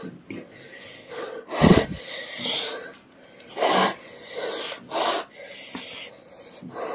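Heavy, hissing breaths and sniffs, drawn in bursts through mouth and nose about every second, the loudest about two seconds in. These are two people reacting to the burn of an extremely hot chili chip.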